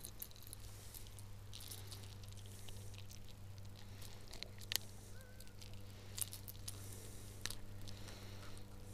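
Faint wet squishing, rustling and scattered clicks of a freshly caught perch being handled, over a steady low hum.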